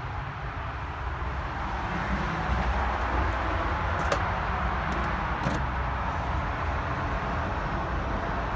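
Steady outdoor rumble and hiss, swelling slightly about two seconds in, with a few faint clicks near the middle.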